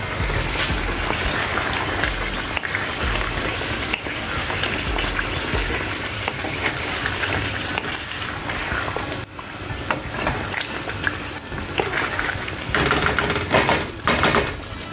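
Chicken pieces frying in a masala gravy in a non-stick pan, bubbling and sizzling steadily. A wooden spatula stirs and scrapes the pan, most plainly in the last few seconds.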